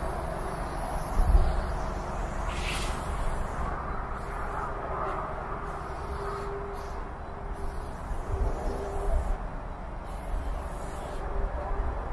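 Aerosol spray-paint can hissing in short, irregular bursts as paint is sprayed onto a freight wagon's steel side, one burst stronger about three seconds in, over a low rumble.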